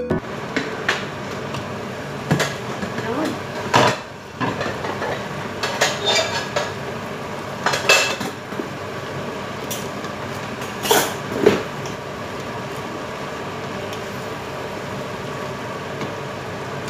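A wooden spatula and a steel lid clinking and knocking against a large stainless-steel stockpot as mung bean sprouts are stirred, in irregular strokes with a few louder knocks, over a steady hiss.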